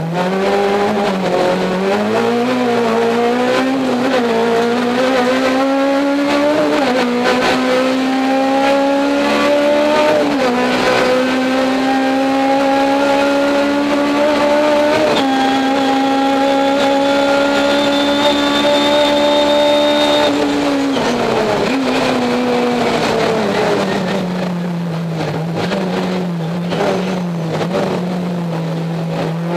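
Race car engine heard from inside the cabin, accelerating hard up through the gears: the pitch climbs and drops with quick upshifts about 7, 10 and 15 seconds in, then holds at high revs. About 20 seconds in the revs fall away as the car slows, and the engine runs at lower steady revs near the end.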